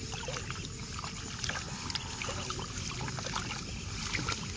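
Hands sloshing and splashing in the shallow muddy water of a flooded rice nursery as seedlings are pulled up by the roots, a run of small irregular splashes.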